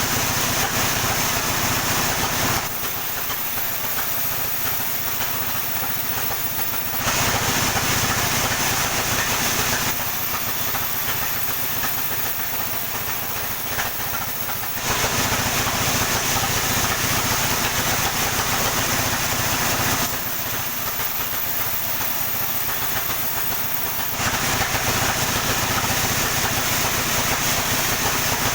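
Sawmill running while sawing a coconut palm log: a steady engine hum throughout, with louder stretches of hissing saw cut alternating with quieter stretches, switching abruptly every three to five seconds.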